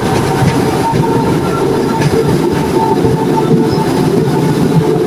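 A train running on the rails: a steady, loud low noise of the cars in motion, with faint high tones coming and going above it.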